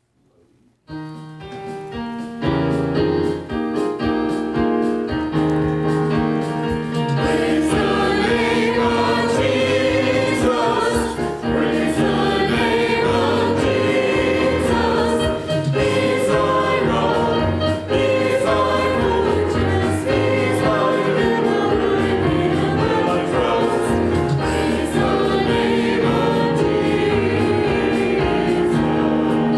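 Choir singing gospel music, starting suddenly about a second in and continuing steadily.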